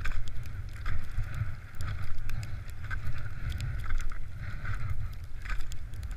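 Ski touring steps: skis fitted with ski crampons scraping over snow about once a second, with short sharp clicks, over a steady wind rumble on the microphone.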